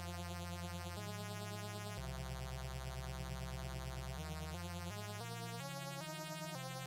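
Ambient synthesizer music played live on an Arturia MicroFreak and a Korg NTS-1: sustained notes over a low bass line that holds for about two seconds, then steps to new notes roughly twice a second.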